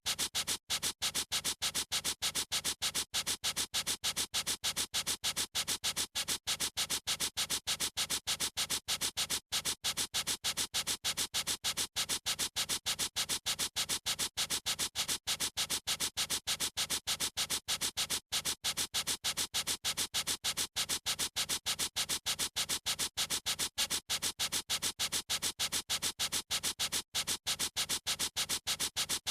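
Marker scribbling on paper in quick, even back-and-forth strokes, several a second: a dry, scratchy hiss that repeats steadily throughout.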